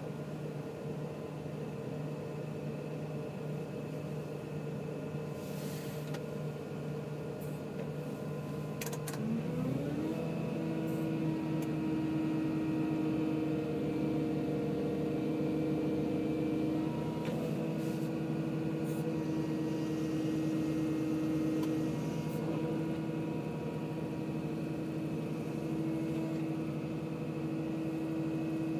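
Caterpillar 323 hydraulic excavator's diesel engine, heard from inside the cab. It runs at low revs, then rises in pitch about ten seconds in and holds at higher revs while the arm and bucket are worked.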